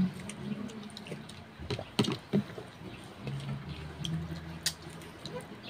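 Close-up eating sounds of a person chewing adobo chicken feet: wet chewing and lip smacks, with a few sharp clicks.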